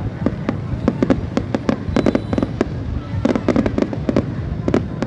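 Fireworks going off: a rapid, irregular string of sharp bangs and crackles, several a second, over a steady low rumble.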